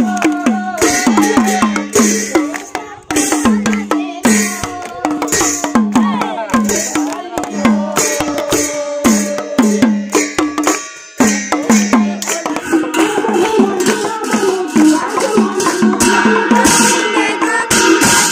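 Group of women singing a devotional chant in unison with hand-clapping and brass cymbals, over a steady percussion beat of about two strokes a second; the sound breaks off briefly twice.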